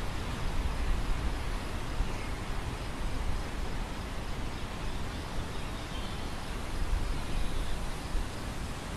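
Wind blowing across a field of grain: a steady rushing rustle with a low rumble that swells and eases in uneven gusts.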